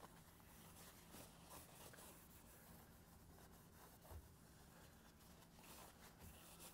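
Faint rubbing and soft scuffs of a paper towel wiping a car's interior door panel, over a low steady hum.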